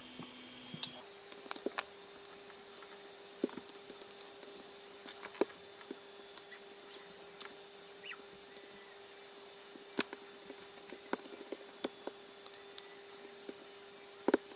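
Diagonal cutters biting and prying the aluminium shell off the ceramic casing of a small bimetal thermostat: scattered sharp metal clicks and crunches, irregular, a few at a time.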